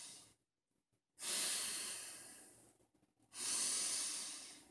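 A man taking deep chest breaths through the nose: the shallow, shoulders-up breathing he calls breathing backwards. The first breath fades out right at the start, then two more follow about two seconds apart, each starting suddenly and fading, with silence between.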